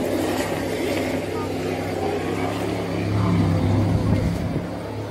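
Racing powerboat engines in a steady drone that swells louder about three seconds in, with people's voices mixed in.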